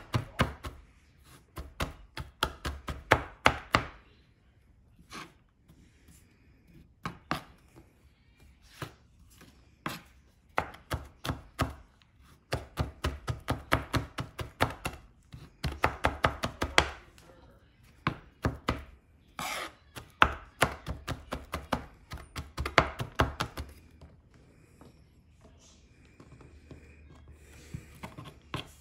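Kitchen knife rapidly mincing garlic cloves on a plastic cutting board: quick runs of sharp taps with short pauses between them, stopping about four seconds before the end.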